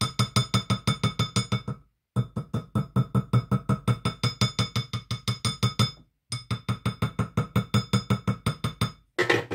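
Small metal jeweller's hammer tapping rapidly on a silver ring's shank as it sits on a steel ring mandrel, straightening the bent shank; each blow rings with a clear metallic tone. Three runs of quick taps, about seven a second, with short pauses between them, then a brief clatter near the end.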